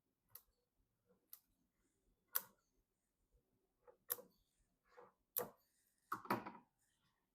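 Scattered light clicks and knocks of computer parts being handled and fitted, about eight separate hits, the sharpest about two and a half seconds in and a cluster near the end.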